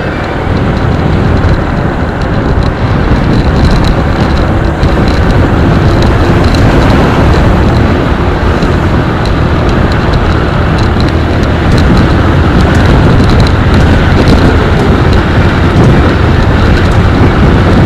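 Steady wind rush over the microphone of a motorcycle moving at road speed, with the motorcycle's engine and road noise underneath.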